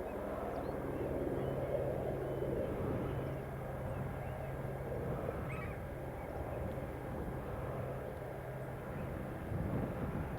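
Valtra T.153 tractor engine running steadily under load while ploughing, with a few faint gull calls over it.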